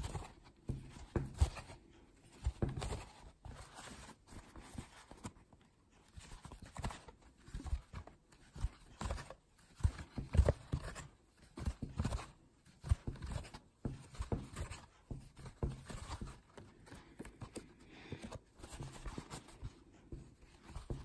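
Metal crochet hook working yarn into single crochet stitches: soft, irregular taps and rustles from the hook and the hands handling the crocheted piece.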